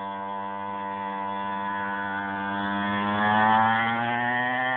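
49 cc two-stroke pocket dirt bike engine running at a high, buzzy pitch that rises steadily as the bike speeds up. It grows loudest as the bike passes close by, about three and a half seconds in.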